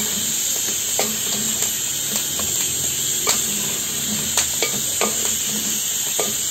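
Rice sizzling as it fries in pork lard in a cast-iron pot, stirred with a wooden spoon that knocks against the pot every second or so.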